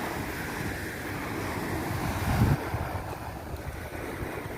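Sea waves washing on the shore with wind buffeting the microphone, and a brief low rumble of a gust about halfway through.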